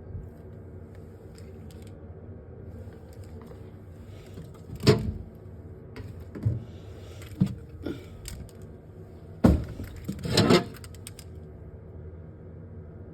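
A handful of sharp knocks and rattles from objects being handled, over a steady low hum.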